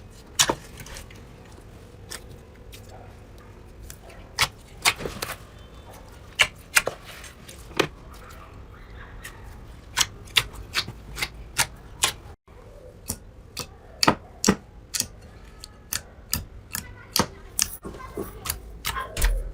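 Slime worked by hand, giving a string of sharp, irregular clicks and pops, with a brief break about twelve seconds in.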